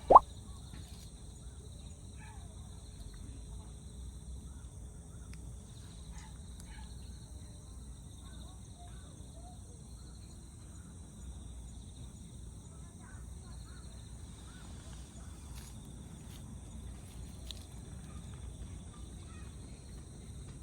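Quiet outdoor ambience: a steady high drone with faint, scattered short chirps over low background rumble. A single brief loud sound comes right at the start.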